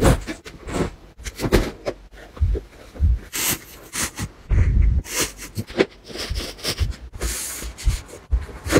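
Clothes and a fabric storage organizer being handled: uneven rustling of denim and cloth with soft knocks and thumps as the garments are pushed into the box and it is set down.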